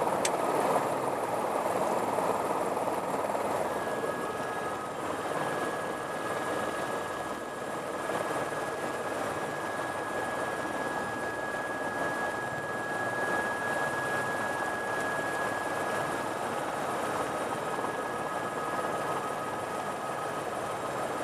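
Helicopter turbine engine and rotor running steadily, heard from inside the cabin, with a steady high whine that comes in about four seconds in. A sharp click right at the start.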